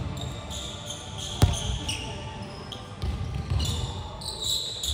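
A volleyball slapping once on a hardwood gym floor about a second and a half in, echoing in a large gym, with sneakers squeaking on the court and low voices in the background.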